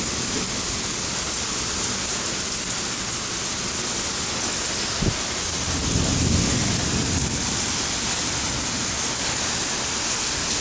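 Heavy rain pouring down steadily in a thunderstorm, with a low rumble of thunder swelling about six seconds in and a brief knock just before it.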